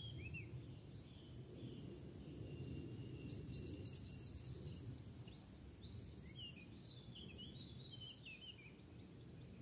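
Morning birdsong from several birds, faint chirps and a rapid trill of repeated high notes about halfway through, over a steady low rumble of nearby road traffic.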